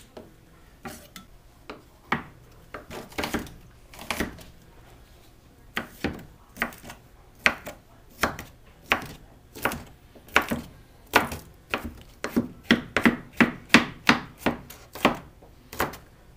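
Chef's knife chopping garlic cloves on a wooden cutting board. A few scattered knocks come first, then a regular run of blade strikes on the board that quickens to about three a second in the second half.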